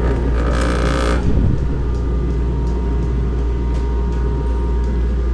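Ingersoll Rand UP6-5-125 rotary screw air compressor, a 5-horsepower unit in a sound enclosure, running quietly with a steady low hum and a faint even whine.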